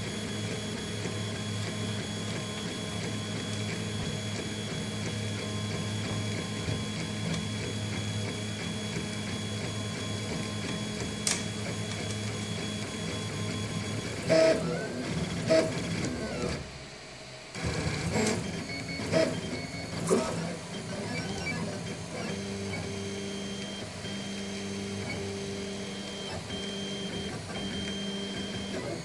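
3D printer with an Arduino Mega and RAMPS 1.4 running a print, its stepper motors humming steadily. About halfway through the motion turns irregular, with a few sharp jerks and a brief pause, before steady moves resume at a different pitch. This stutter is typical of a clogged serial connection starving the printer of commands.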